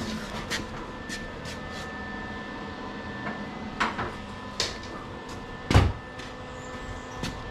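Steady workshop hum made of several held tones, broken by a few sharp clicks and knocks, the loudest a heavier thud about six seconds in.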